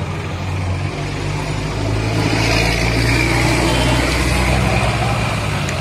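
Motor vehicle engine running, a steady low rumble that grows louder for a few seconds in the middle, with general street noise.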